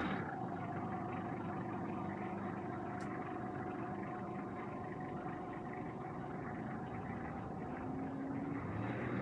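Steady rumble of distant road traffic, with a faint steady tone that fades away over the first several seconds.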